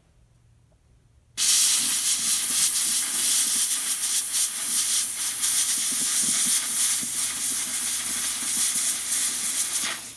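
Air eraser (pencil-sized sandblaster) blasting grit onto the old solder seams of a stained glass lampshade: a loud, steady hiss of compressed air and abrasive that starts suddenly about a second and a half in and cuts off near the end. The blast is cleaning tarnished old solder down to grey so new solder will stick.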